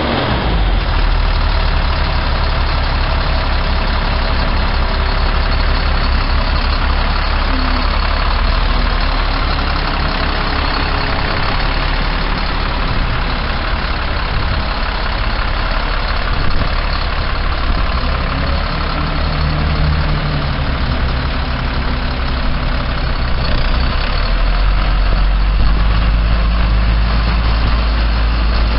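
Caterpillar C7 inline-six diesel engine of a 2005 Freightliner FL70 truck idling steadily, its low rumble getting heavier near the end.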